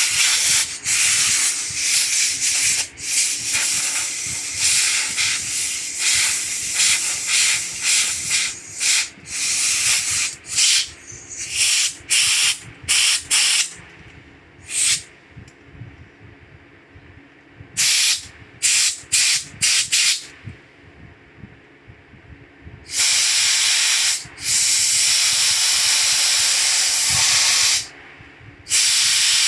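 Pressurised spray hissing in bursts: many short blasts, then after a quieter stretch two longer blasts of a few seconds each near the end.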